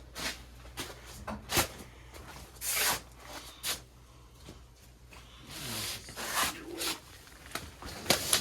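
Scattered knocks, clicks and brief rustling swishes of a person moving about and handling things, over a faint steady low hum.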